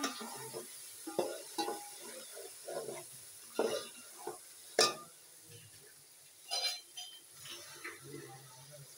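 A slotted metal spoon stirring and scraping diced potatoes and fried onions around a metal pot, in uneven strokes with a few sharp clinks of spoon on pot, over a light sizzle of oil.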